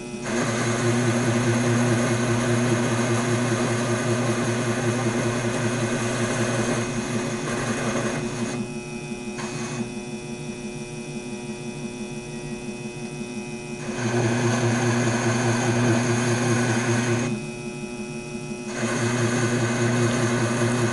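Taig bench lathe running under power while a hand-swung ball turning tool cuts a 3/8-inch 304 stainless steel ball: a steady motor hum with a cutting noise on top. The sound drops back twice for a few seconds, about eight and seventeen seconds in, then comes back up.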